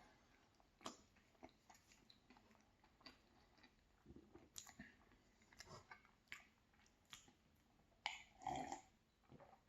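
Faint chewing of a soft frosted cupcake: scattered soft mouth clicks and smacks, a little louder near the end.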